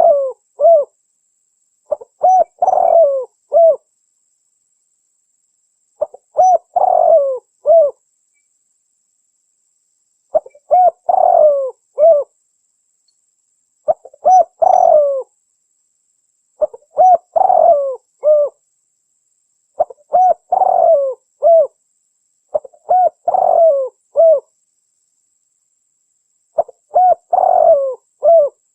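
Spotted dove (terkukur) cooing: about nine short phrases of several coo notes each, repeated every few seconds with dead silence in between, a clean recording of the call used to lure wild doves.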